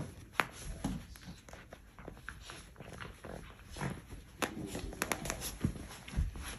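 Miniature dachshund puppy scrabbling and digging at a plush dog bed: scattered scratching and rustling with short clicks and a few soft thumps.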